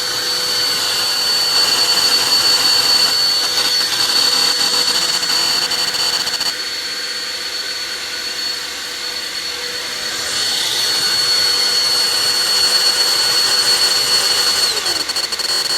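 Black+Decker Dustbuster 16-volt lithium cordless handheld vacuum running, loud, with a steady high motor whine over a rush of air. It drops in level for a few seconds midway as it is moved around, and near the end the whine falls away as the motor spins down.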